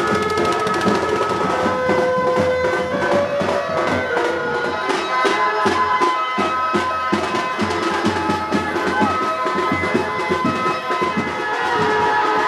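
Music: a wind-instrument melody of held notes over steady drumbeats.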